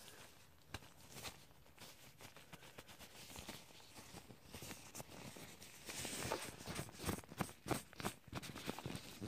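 Crackling rustle of a damp cotton pad and gloved fingers handled right at the microphone. It grows louder and denser about six seconds in, as the pad is rubbed over the phone.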